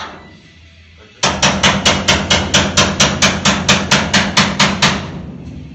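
Hammer beating rapidly on a car's sheet-metal body panel, about five even blows a second, starting a second in and stopping about five seconds in, with a ringing metal tone under the blows.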